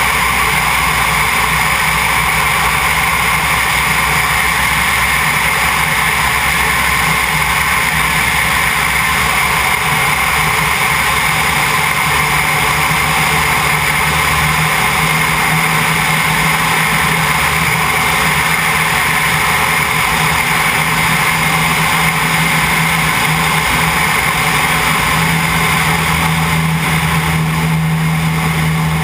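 Two-seat Cessna's single piston engine and propeller running steadily in flight, heard from a camera mounted outside the airframe with airflow rushing over it. A low engine drone grows a little stronger near the end.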